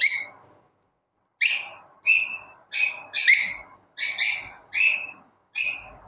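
Lovebird giving a series of about eight short, high chirps, roughly two a second, starting after a quiet first second.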